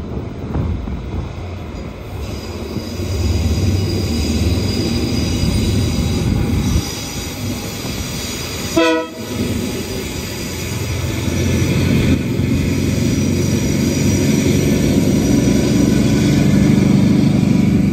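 Two KiwiRail DL-class diesel-electric locomotives running under power as they haul a freight train out of a tunnel and past close by. The engine drone grows louder toward the end, and there is one short horn blast about halfway through.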